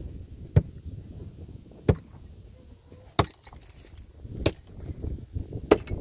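Five sharp chopping blows in a steady rhythm, about one every 1.3 seconds, with low rustling and knocking between them.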